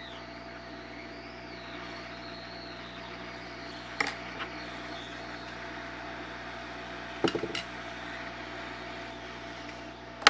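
A steady mechanical hum, like a fan, runs under sharp metal clicks from a CPU's soldered heat spreader being pried loose. There is one click about four seconds in and a short clatter of taps about seven seconds in.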